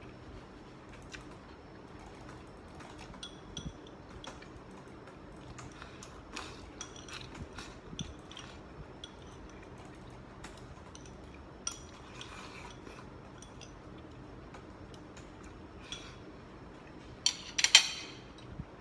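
Eating utensils clinking and tapping against a dish during a meal: scattered light clicks, with a louder cluster of clinks near the end.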